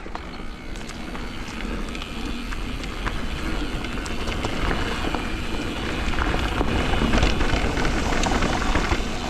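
E-mountain bike riding over a dirt trail: wind rushing on the microphone and tyre and trail noise with many small clicks, getting gradually louder.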